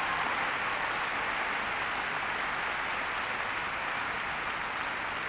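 Large audience applauding steadily, slowly dying down.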